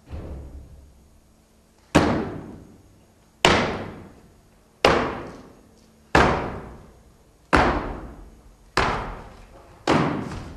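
A series of heavy, echoing slams: a faint one first, then seven loud hits about every one and a half seconds, each ringing out for about a second before the next.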